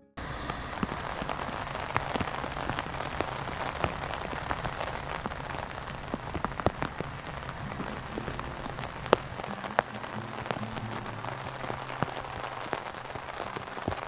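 Steady rain falling, with many individual drops striking a surface as sharp ticks and a faint low hum underneath.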